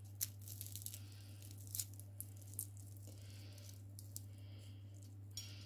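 Faint, scattered crackles of a crisp fried batter coating as a piece of popcorn chicken is pulled apart by hand, over a low steady hum.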